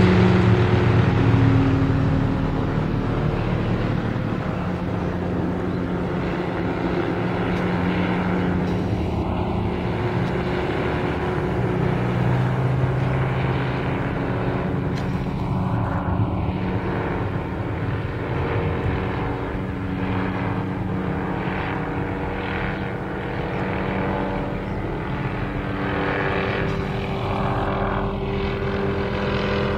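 Police helicopter circling overhead: a steady drone of rotor and engine, loudest in the first couple of seconds, its tone slowly shifting as it moves across the sky.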